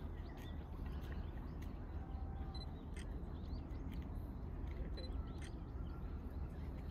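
Outdoor park ambience: a steady low rumble with scattered short bird chirps and a few faint clicks.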